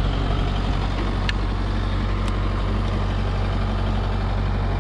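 JCB backhoe loader's diesel engine running steadily at idle, a deep, even hum, with two faint ticks about a second apart.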